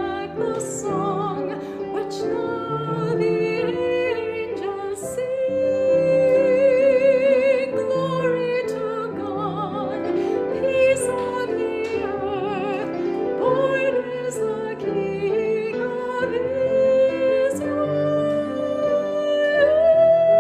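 Classical-style solo singing with wide vibrato over piano accompaniment, the voice holding a long high note near the end.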